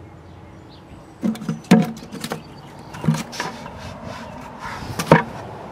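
Plastic bucket and plastic net cup being handled: about six short knocks and taps, spaced unevenly.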